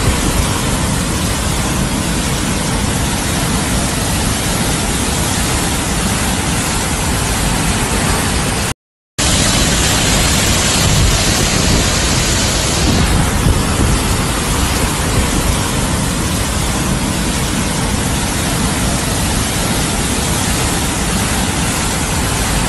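Floodwater rushing through a street as a loud, steady roar of water. The sound breaks off for a moment about nine seconds in.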